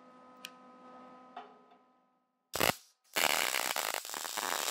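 Wire-feed (MIG) welder striking tack welds that join the tube bender's upright to its base. It starts with a brief burst of arc crackle about two and a half seconds in, then after a short gap runs into a longer, steady crackling weld of about two seconds.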